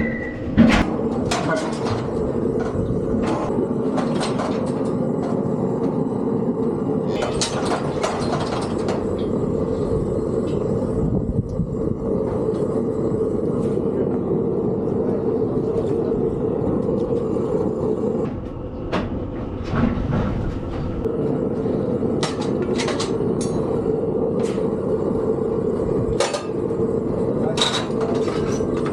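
A steady mechanical hum with a rumble, with sharp metal clanks and knocks scattered throughout, a dense cluster of them about seven to nine seconds in and several more near the end, typical of cattle being worked through a metal squeeze chute.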